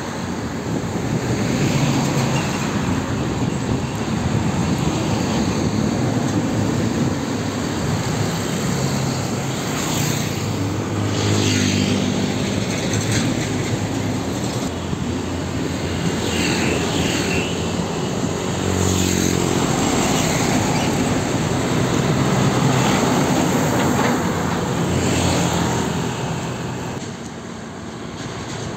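Heavy diesel trucks passing close by one after another, engines running under load with tyre and road noise. Several louder passes come through, and the traffic sound eases near the end.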